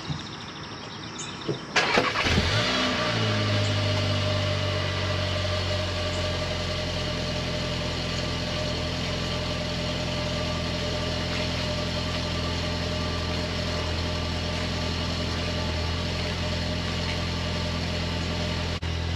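2021 Volkswagen GLI's 2.0-litre turbocharged four-cylinder, cold-started through its stock exhaust: the starter cranks briefly about two seconds in, the engine catches with a short flare of revs that quickly falls back, then settles into a steady idle.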